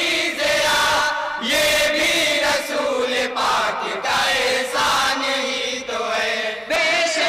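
A group of men chanting a naat together in chorus, in long, drawn-out melodic lines with short breaks between phrases.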